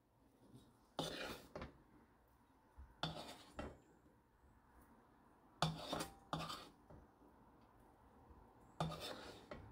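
Wooden spoon scraping sticky braised beans and peas from a pan and into a glass container, in short rasping strokes that mostly come in pairs every few seconds.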